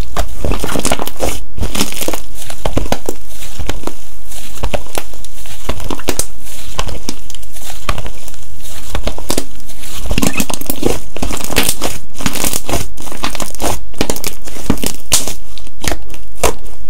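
Slime being squished and pressed by hand, giving a dense, irregular run of crackling and popping clicks.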